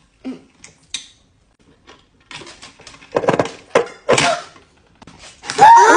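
Pencil sharpener working on a thick pencil in a few short grinding bursts, with light clicks before them. Near the end comes a loud, pitched, falling wail.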